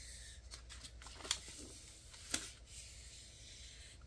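A long strip of clear plastic PET tape handled in the hands, rustling with a few sharp crinkles, the loudest a bit over two seconds in.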